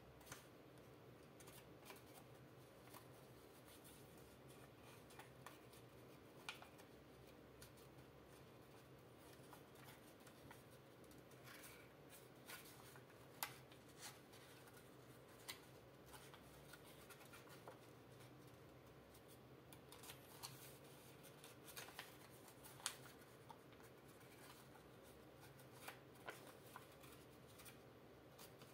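Faint crinkle and crackle of a sheet of origami paper being creased and folded by hand, heard as scattered small clicks, over a steady low hum.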